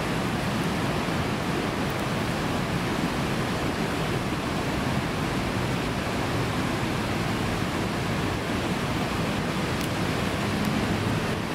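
Steady rush of river water pouring and foaming over rapids, an even roar that does not change.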